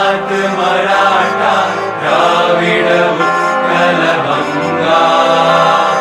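Large mixed choir of about a hundred men's and women's voices singing an anthem together in long, held notes.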